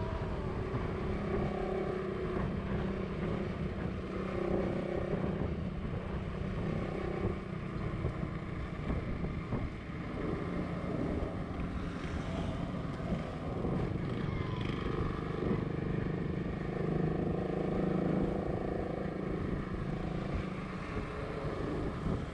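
Motorcycle engine running while riding on the road, its note shifting up and down with the throttle.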